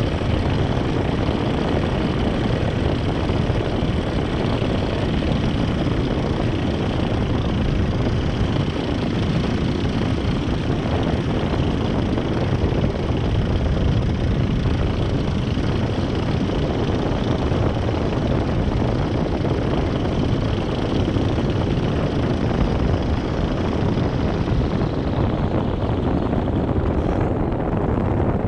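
Paramotor's engine and propeller running steadily in flight. The higher part of the sound thins out near the end.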